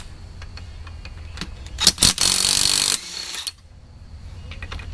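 Cordless DeWalt power tool with a socket running in one burst of just under a second, about two seconds in, backing out a rocker arm bolt on the Hellcat engine's cylinder head. A few sharp metal clicks come just before it.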